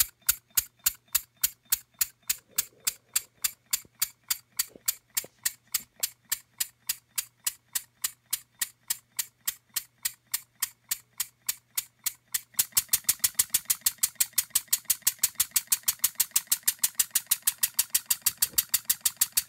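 Small single-cylinder model engine running, its flywheel turning and each stroke giving a sharp click, about three a second. About two-thirds of the way through it speeds up to four or five clicks a second and a steady hiss joins in.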